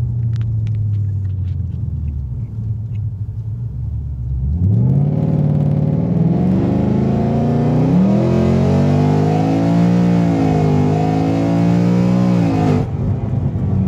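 Whipple-supercharged Ford Coyote 5.0 V8 in a 2018 Mustang GT, heard from inside the cabin. It cruises steadily, then from about 4.5 s in it runs a full-throttle pull, rising in pitch with two brief dips at the upshifts, and cuts off sharply near the end as the throttle is released. The engine is down on power from a badly off tune and pulls like a naturally aspirated car.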